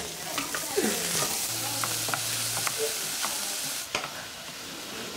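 Food frying and sizzling in a saucepan on a gas hob while it is stirred with a wooden spoon, with small taps of the spoon against the pan. The sizzle drops away about four seconds in.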